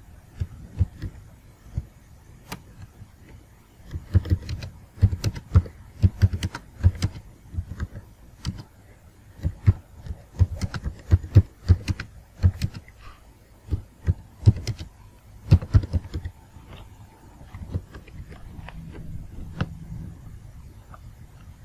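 Typing on a computer keyboard: irregular runs of keystrokes, each a click with a low thud, thickest through the middle and thinning out toward the end.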